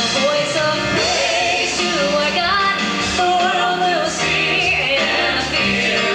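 A gospel song: singing with held, gliding melody notes over a full band accompaniment.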